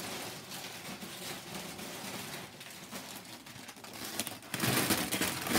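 Crinkly chip bags being handled, a continuous rustling crinkle that gets louder near the end.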